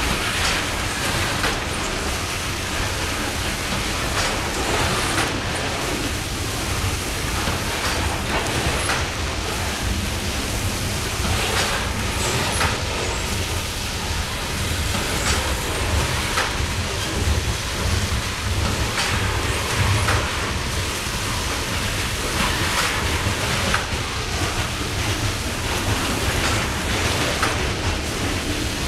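Loaded coal hopper cars rolling past in a steady low rumble with occasional sharp wheel clicks, over the hiss of the coal sprayer's spray falling onto the loads.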